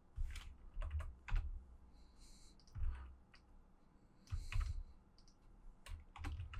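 Computer keyboard keys and mouse buttons clicking at an irregular pace: scattered single keystrokes and clicks, with a few low thumps, while code is typed and a line is selected and copied.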